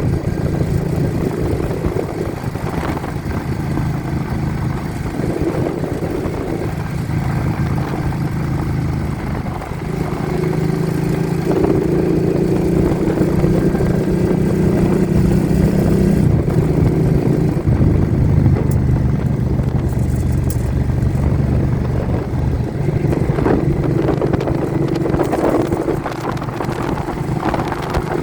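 A vehicle engine running on the road, its note shifting in pitch a few times, with wind buffeting the phone's microphone throughout.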